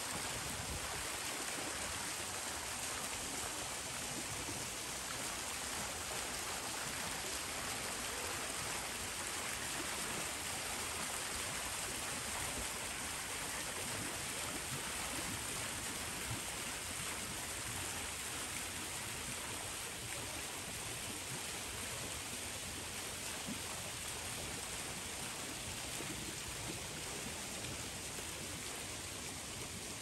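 Steady rush of running water, like a small stream or cascade splashing, holding even throughout.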